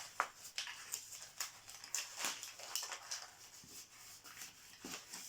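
Wrapping around a small cosmetic product being torn and crinkled open by hand: irregular crackling rustles.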